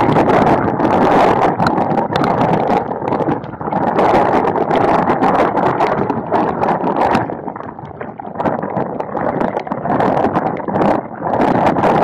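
Gusty storm wind buffeting the camera's microphone, rising and easing in surges with a lull about two-thirds of the way through, and raindrops ticking on the camera.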